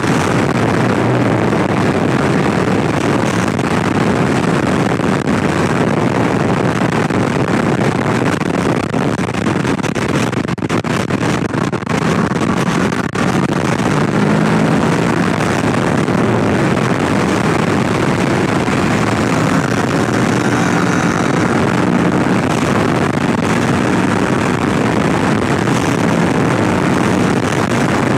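Steady rush of wind and road noise from riding at speed on a 2018 Kawasaki Ninja 650, with the bike's parallel-twin engine note showing faintly through it in the second half. The noise eases briefly about ten to thirteen seconds in.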